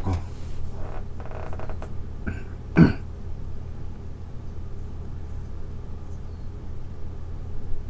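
A steady low hum, with one short throaty sound from a person about three seconds in.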